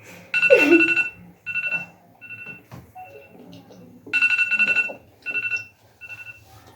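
Electronic ringtone-style beeping: one steady pitch sounding in a repeating on-off pattern, a long ring followed by several short ones, twice over.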